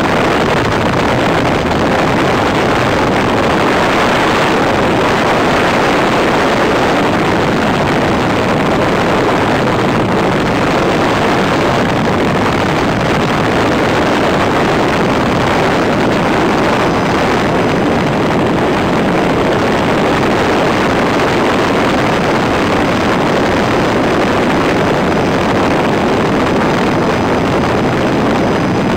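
Loud, steady helicopter engine and rotor noise heard from inside the cabin in flight.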